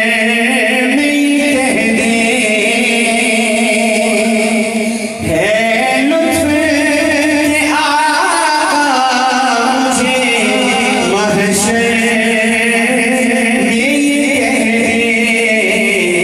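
A man singing a naat into a microphone, drawing out long, wavering held notes, with a short dip in loudness about five seconds in.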